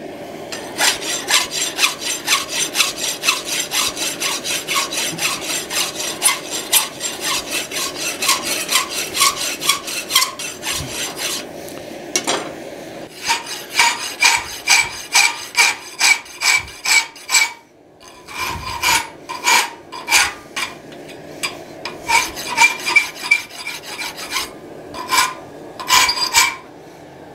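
Hand file worked along the edge of a forged steel hinge strap: steady rasping push strokes, about two a second, with a couple of short pauses. The later strokes carry a high squeak.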